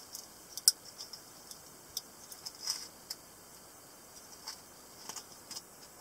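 Small skull-handled folding pocket knife being folded shut and handled: a scattered run of small sharp metal clicks and light rattles, the sharpest about two-thirds of a second in.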